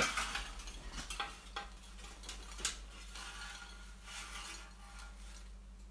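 Light clinks and rattles of the air fryer's removable basket and the chips in it being handled, a few separate clicks among them.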